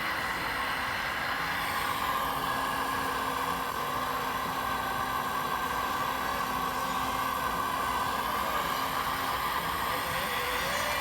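Radio-controlled model trucks and construction machines running steadily, with a thin motor whine that rises and falls briefly near the start and again near the end, over a constant background hum.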